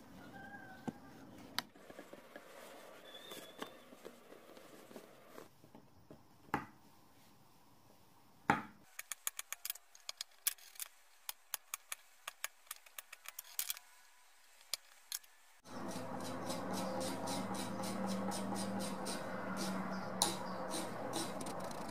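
Light clicks, taps and scraping of hand carving tools working a hornbeam axe handle, with a dense run of quick sharp clicks in the middle. From about two-thirds of the way in, a steady hum comes up under the tool noise.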